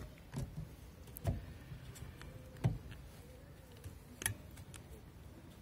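A few sharp, scattered plastic clicks and knocks, about four, as a windshield wiper blade's mounting clip is handled and pushed onto the wiper arm.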